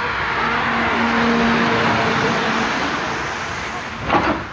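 A car passing by: its noise swells to a peak about a second and a half in, then fades away. A short, loud noise comes near the end.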